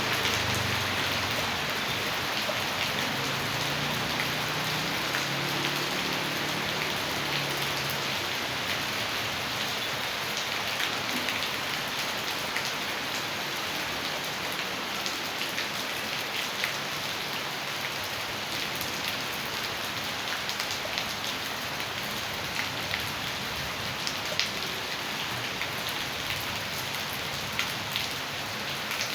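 Steady rain falling, with many sharp drop hits on surfaces scattered through the hiss.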